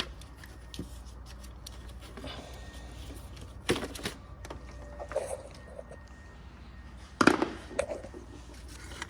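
Scattered clicks and knocks of hand tools and parts being handled during engine work, over a steady low hum. The loudest knocks come about four seconds in and again about seven seconds in.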